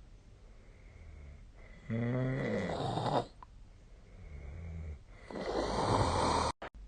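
A sleeping person snoring: a loud, low buzzing snore about two seconds in, a quieter breath after it, then a loud, rasping breath near the end that cuts off abruptly.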